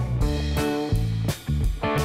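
Instrumental background music: guitar over a steady drum beat, in a bluesy rock style.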